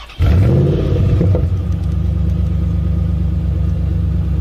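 Car engine starting up with a sudden loud catch, briefly rising in revs, then settling into a steady low idle.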